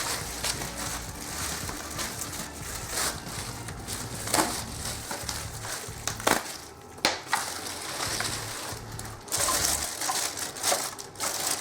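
Packaging being handled and unwrapped: continuous rustling and crinkling, broken by several sharp clicks and knocks.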